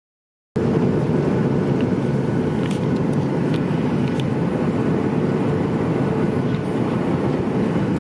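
Steady engine and airflow noise inside an airliner cabin, with a faint steady hum. It cuts in abruptly after half a second of silence.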